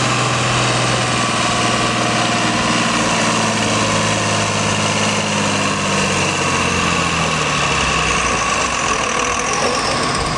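John Deere tractor engine running hard under load while pulling a weight-transfer sled at a tractor pull. The engine's pitch sags steadily over the second half as the sled's weight builds and it lugs down.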